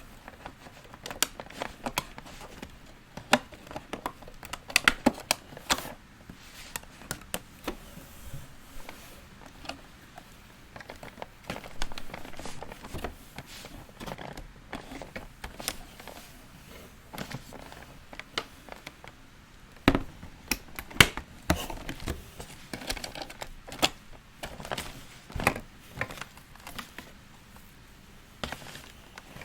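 Hands handling a plastic fashion doll and its packaging pieces: irregular small clicks, taps and light rustles, with busy clusters of clicks near the start and again about two-thirds of the way through.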